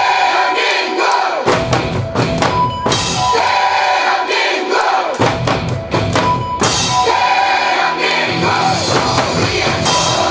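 Several drummers playing together on Korean buk barrel drums struck with wooden sticks, in a loud percussion-ensemble rhythm. The deep drum strokes stop twice for a second or two, leaving sharper stick hits, then come back in.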